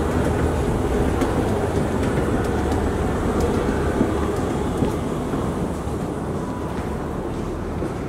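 Steady low rumble of airport terminal background noise, easing a little about five seconds in.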